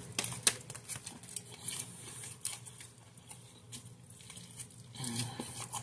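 Close-up mouth sounds of a person chewing a bite of sub sandwich: faint, irregular clicks and small crackles.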